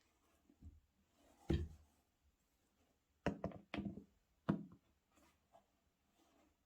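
Handling noise from sneakers and their box: a knock and thud about a second and a half in, then a quick cluster of three or four knocks between about three and four and a half seconds in.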